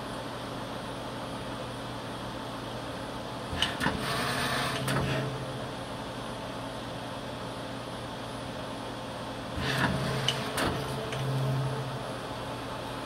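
Mupem WIN 6500 CNC lathe running with a steady hum. Twice, about four seconds in and again about ten seconds in, there is a click followed by a short stretch of louder motor hum as the tool turret indexes.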